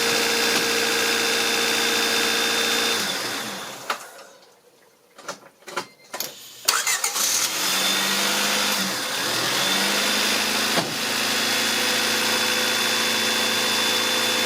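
1993 Honda Civic four-cylinder engine idling, then switched off and winding down about three seconds in. After a short pause with a few clicks, it is cranked and starts at once about seven seconds in, wavers briefly, then settles back to a steady idle: a clean restart on a newly replaced ignition coil, a sign the crank-no-start fault is cured.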